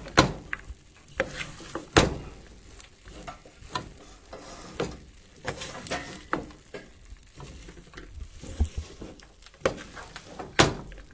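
Metal spoon stirring corn kernels coated in thick, sticky panela syrup in a metal pot, scraping and clicking against the pot, with sharper knocks near the start, about two seconds in and near the end. The stirring keeps the sugar-coated kernels from setting into one solid block as they cool.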